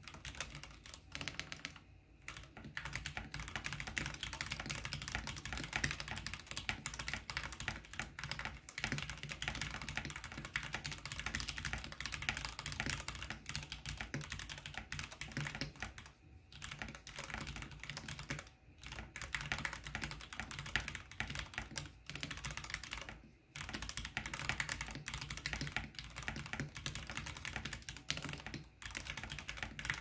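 Fast, continuous typing on a Ducky One 2 Mini mechanical keyboard with lubed retooled Cherry MX Black linear switches and white PBT keycaps, broken by a few short pauses. The lube hushes the spring ping, which leaves the hollow sound of the plastic case more pronounced.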